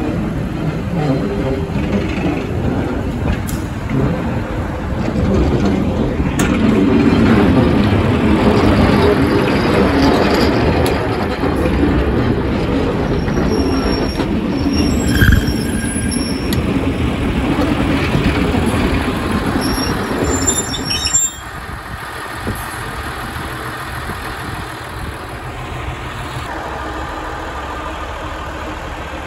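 Class 143 Pacer diesel railbus running as it rolls slowly past along the platform. About two-thirds of the way through, the sound drops suddenly to a quieter, steady engine running.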